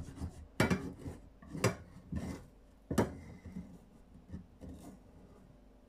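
A nylon slotted spatula scrapes the bottom of a frying pan in short strokes, working loose stuck-on browned food. There are about five sharp scrapes in the first three seconds, then fainter ones that die away.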